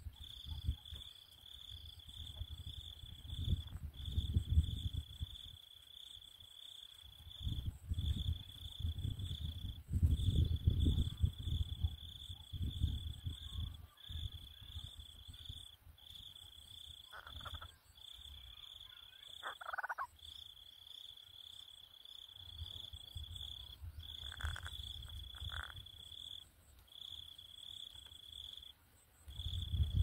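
Insect trilling, a steady high buzz in stretches of one to three seconds with short breaks, over low rumbling that swells and fades. A few short, higher calls come in the second half.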